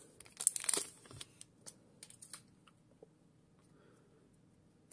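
Foil trading-card booster pack crinkling as it is handled and the cards are slid out: a burst of crinkling in the first second, then a few soft rustles and clicks that die away to near quiet.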